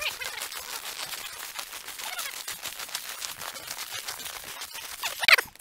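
Footsteps crunching through snow, a dense, irregular crackle of small clicks. Near the end comes a short falling squeak.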